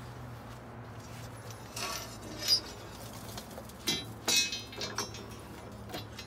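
A long steel clean-out rod scraping and knocking inside the ash chamber of a wood-gasification boiler, breaking up packed ash and raking it into a metal ash can. It gives a run of sharp metallic clinks, the loudest about two and a half seconds in.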